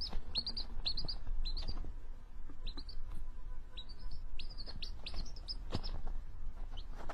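A baby chick peeping: short, high chirps, often in quick pairs and triplets, repeating every half second or so.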